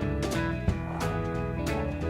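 Background music: guitar-led instrumental track with a steady beat.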